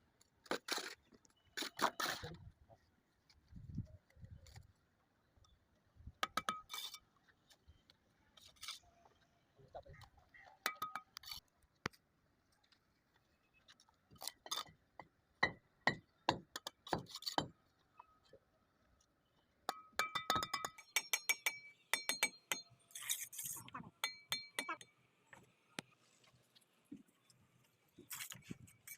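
Irregular sharp clinks and taps of a mason's steel trowel against bricks and mortar during bricklaying, some strikes leaving a brief ringing tone, coming thicker in the last third.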